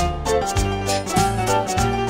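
Music with a steady beat, about two beats a second, and held notes over a bass line.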